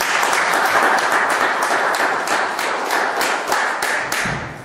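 Audience applauding, dense overlapping hand claps that die away near the end.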